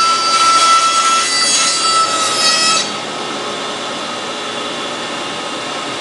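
Bandsaw blade cutting a freehand curve through a wooden board, with steady high tones over the rasp of the cut. About three seconds in the blade breaks out of the board and the sound drops suddenly to the quieter, steady running of the saw with no load.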